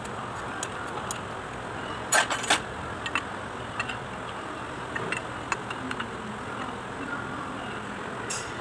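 Steel wrench clinking against bolts on a tractor's cast-iron front axle housing, with two sharp metal clanks about two seconds in and a few lighter ticks later, over a steady background hiss.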